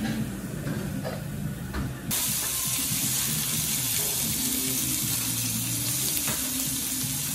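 Live Ezo abalone in their shells sizzling on a hot teppanyaki griddle: a steady hiss that starts abruptly about two seconds in, after quieter room sound.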